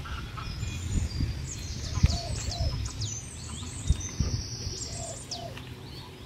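Many small birds chirping and twittering with quick high whistled notes, with a few lower short calls among them. A few low dull thumps stand out above the birds, the loudest about two seconds and four seconds in.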